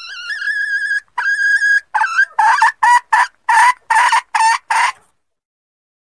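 Female junglefowl (a decoy hen) calling: two long drawn notes, then a quick run of about eight short clucking notes that stops about five seconds in. This is a lure call used to draw wild cock junglefowl out of cover.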